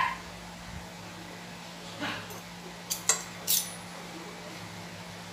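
Spoon and fork clinking and scraping on plates as fried rice is served, a few short clinks about two, three and three and a half seconds in, over a steady low hum.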